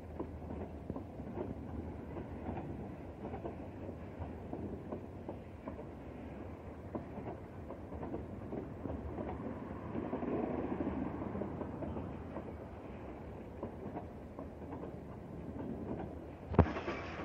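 Freight train of boxcars in a rail yard: a steady rumble full of small clanks and clicks from wheels and couplings, with one sharp knock near the end.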